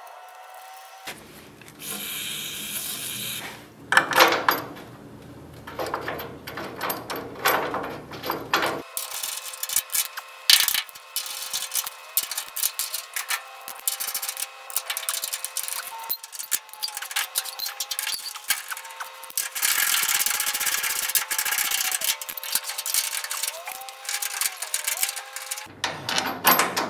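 Hand work on the transmission and axle hardware of a VW Karmann Ghia chassis: a wrench and bolts clicking, clinking and scraping against metal as the bolts are fitted, with stretches of rubbing noise.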